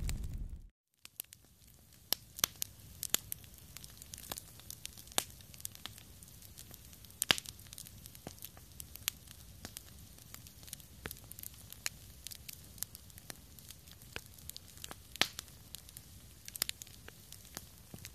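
Wood fire crackling: irregular sharp pops and snaps over a faint hiss, with a few louder pops among them. A louder, rumbling fire sound in the first instant cuts off, and after a brief gap the quieter crackling begins.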